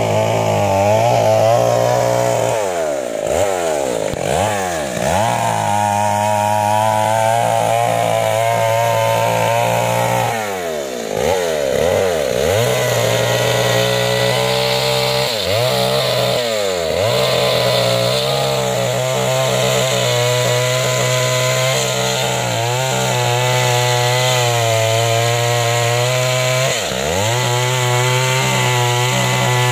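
Two-stroke chainsaw running at high revs, cutting into a tree trunk to fell it. The engine drops back and picks up again several times.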